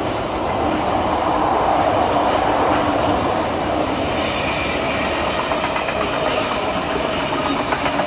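A train passing close by on the main line, its wheels clicking repeatedly over the rail joints in the second half.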